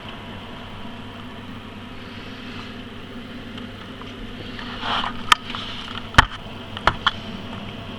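Computer case fans running with a steady buzzing hum. In the second half there is a short rustle, then four sharp clicks.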